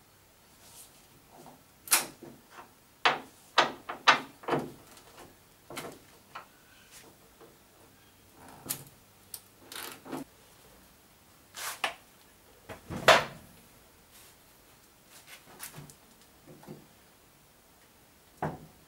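Irregular knocks and clicks, about a dozen, from hand tools on the bonnet hinge bolts and the steel bonnet of a Mazda MX-5 being handled as it is unbolted and lifted off; the loudest knock comes a little past the middle.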